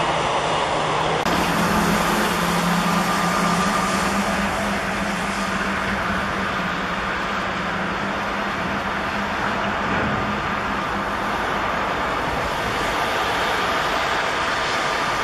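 Airbus A330 jet engines running at taxi power: a steady rushing jet noise with a high whine and a low hum.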